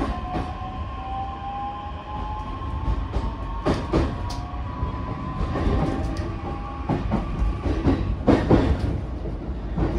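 Running sound inside a JR E131 series electric train's motor car: a low rolling rumble with a thin motor whine slowly rising in pitch, and wheels knocking over rail joints several times, often in quick pairs, in the second half.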